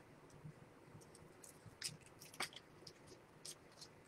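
Near silence with a few faint, short clicks and crackles in the middle: trading cards being handled.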